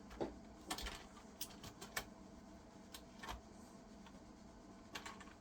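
Faint, irregular clicking from a computer keyboard's keys and keycaps, a scattering of single clicks.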